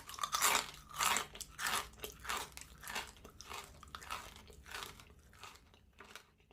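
Crunchy snack food, such as crackers or chips, being chewed with the mouth close to the microphone. The crunches come in a steady run, a little under two a second, and grow fainter and sparser toward the end as the mouthful is chewed down.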